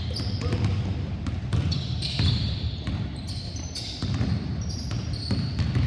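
Several basketballs being dribbled on a hardwood gym floor, irregular overlapping bounces, with short high squeaks of sneakers on the court.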